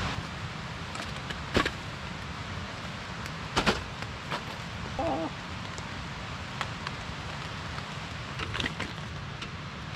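Steady rain hiss with scattered knocks and clicks of gear being handled, the sharpest about one and a half and three and a half seconds in.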